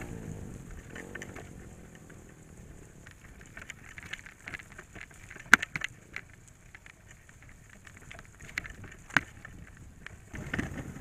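Bicycle luggage trailer rolling over a rough, potholed dirt road: a light rattling and clicking of the frame and load, with two sharp knocks, one about halfway through and one near the end.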